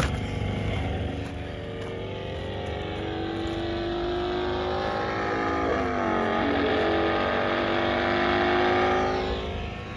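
Racing motorcycle engines at high revs from a motorcycle road-racing film, played through a TV's speaker. The engine note holds steady, dips and climbs back about six seconds in, swells slowly and fades near the end.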